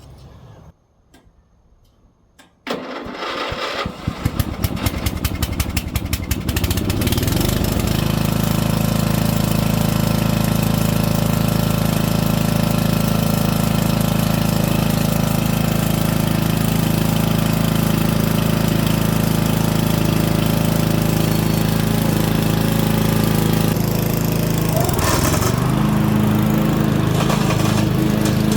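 Murray riding lawn mower's engine cranking over, catching about three seconds in, then speeding up and settling into a steady run. Near the end the note dips briefly and then pulses in a regular rise and fall.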